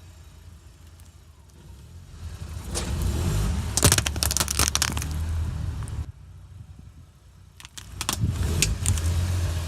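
A car's engine rumbles as it rolls over objects, with sharp crackling crunches as they break under the tyres. The engine swells about two seconds in and fades about six seconds in, then swells again with more crackles near the end.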